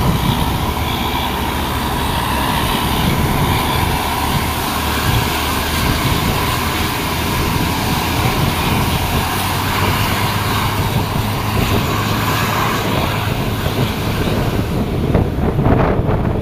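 A large road vehicle's engine running steadily close by: a low engine hum over road noise.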